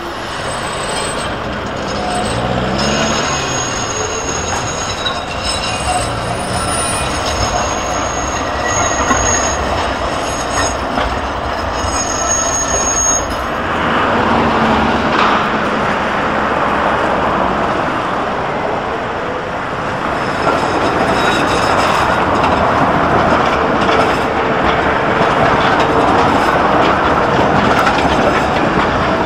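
Electric street trams running on city track: a steady rumble of wheels on rails with intermittent high-pitched wheel squeal in the first half, then a tram passing close by with louder rumbling from its running gear.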